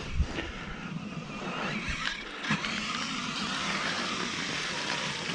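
Dirt bike engine running as a rider comes along the muddy motocross track toward the microphone, a steady rough noise, with two short dull knocks near the start and about halfway through.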